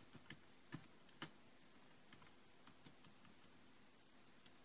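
Faint computer keyboard keystrokes: a few sharp key clicks in the first second and a half, then softer scattered ones over a low room hiss.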